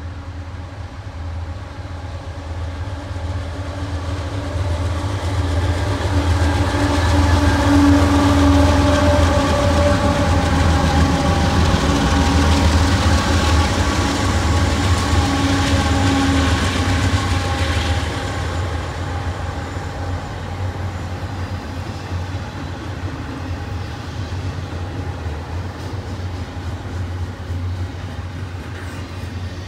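A lash-up of four Union Pacific diesel locomotives approaches and passes close by, its engine drone and steady whines swelling to a peak and then fading away. The double-stack intermodal container cars then roll past with a steady rumble over the rails and faint wheel clicks.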